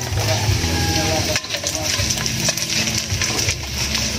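Hot cooking oil sizzling steadily as boneless danggit (rabbitfish) pieces deep-fry in a wok, with a single click about a second and a half in.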